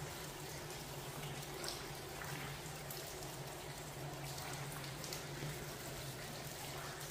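Water dripping in a wet railway tunnel: a few faint, irregular taps over a steady low hum and hiss.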